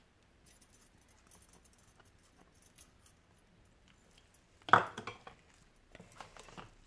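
Quiet handling noise while dough is worked by hand in a mixing bowl, then one sharp knock of the bowl or a dish about two-thirds of the way in, followed by a few lighter clinks and taps.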